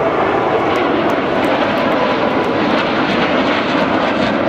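Four F-16C/D fighter jets flying over in formation, their engines making a steady, loud rushing jet noise.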